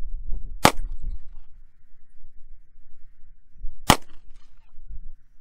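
Two pistol shots fired about three seconds apart, each a sharp crack with a brief ring-out after it.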